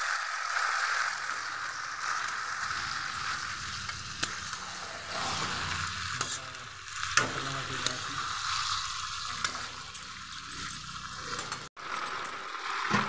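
Chicken curry sizzling in a metal kadai as it is stirred with a steel spatula, with a few sharp clinks of the spatula against the pan. The sound drops out for an instant near the end.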